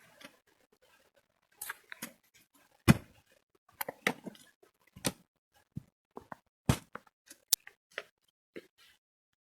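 A series of about a dozen short knocks and clicks at irregular intervals, the loudest about three seconds in.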